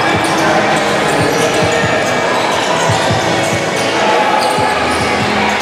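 Basketballs bouncing on a sports hall's wooden court, an irregular run of dull thumps from dribbling.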